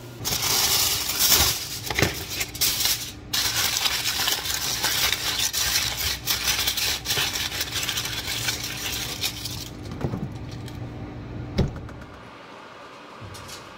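Aluminium foil crinkling and rustling as it is pressed and folded over a pan, dense and continuous for about ten seconds, then a couple of soft knocks as it is handled.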